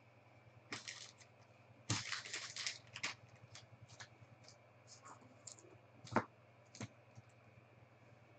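Faint handling of a trading card: a scratchy rustle as the card is slid and set down, then a few light clicks and taps, the sharpest about six seconds in.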